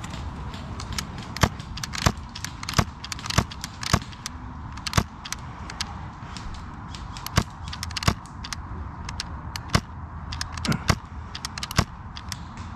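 Airsoft gunfire: sharp single cracks at uneven intervals, about one or two a second, some coming in quick pairs, over a steady outdoor hiss.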